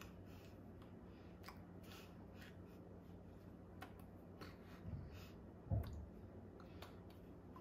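Quiet room tone with a steady low hum, under faint clicks and rustles from a person moving and signing with her hands. A soft low thump comes a little before six seconds in.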